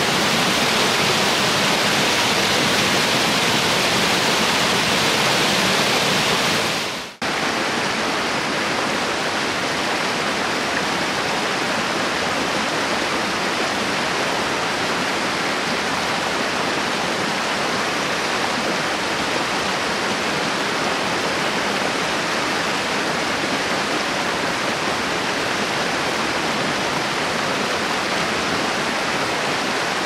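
Rushing white water of river rapids, a steady loud hiss of water over rocks. About seven seconds in it briefly drops out and comes straight back, a little duller.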